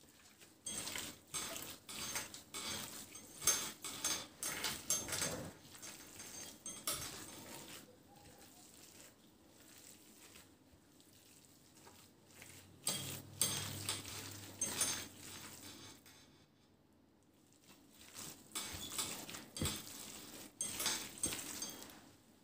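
Gloved hand kneading and squeezing raw minced meat in a glass dish: quick runs of squishing and slapping in three bursts, with quieter stretches about a third of the way in and again about three quarters of the way in.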